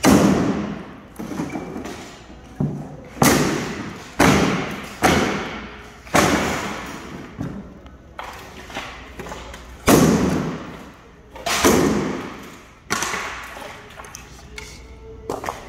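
Heavy sledgehammer blows smashing a bathtub: about a dozen hard thuds, one every second or so with short pauses, each dying away with an echo in a large room.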